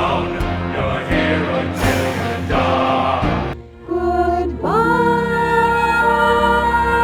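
Musical-theatre song mashup: rhythmic orchestral accompaniment with heavy regular strikes, a brief drop, then voices sliding up into a long held chord about two-thirds of the way in.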